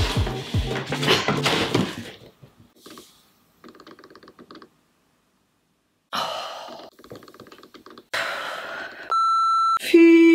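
A woman groaning and gasping in pain after her acrylic nail caught while she tore open a package, with cut-off stretches of silence, then a short steady bleep about nine seconds in.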